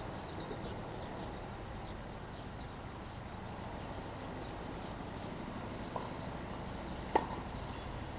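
Tennis racket striking the ball: a faint hit about six seconds in, then a sharp, loud forehand hit about a second later, over steady background noise.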